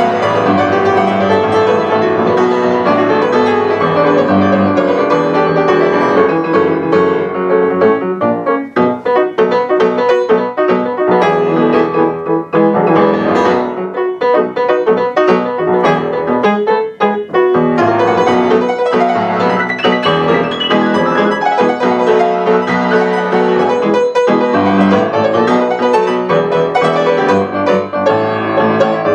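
Solo grand piano playing a fast, dense passage of full chords. About a third of the way through it thins to crisper, separate struck notes, then builds back to full chords.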